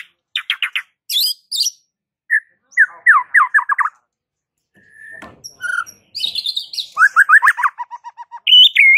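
White-rumped shama singing loudly in phrases of quick repeated notes, trills and sharp whistles, with short pauses between phrases.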